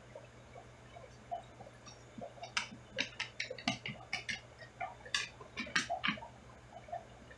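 Irregular sharp clicks, about a dozen over a few seconds, bunched in the middle, over a steady low hum, as heard by a camera submerged in an aquarium.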